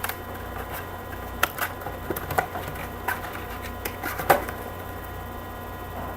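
Trading card packs and cards being handled on a table: light tapping, rustling and a few sharp clicks, the loudest about four seconds in, over a steady electrical hum.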